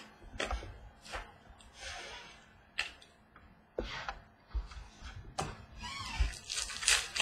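Trading cards being handled on a tabletop: a handful of sharp, irregular clicks and taps as cards are flipped and set down, with soft rustling between them.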